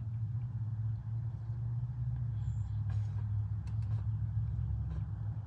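Steady low hum of a vehicle running, with a few faint clicks partway through.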